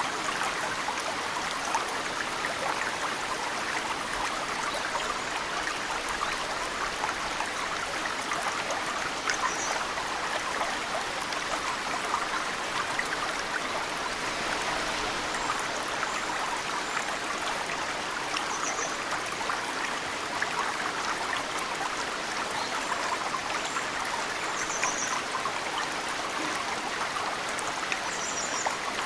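A mountain stream running steadily, with snowmelt drops dripping into the water and a few brief, high bird chirps.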